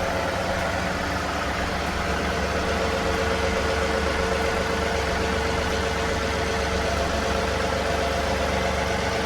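Tractor engine idling steadily while the tractor is eased back to the hitch, with a steady whine that comes in about two seconds in.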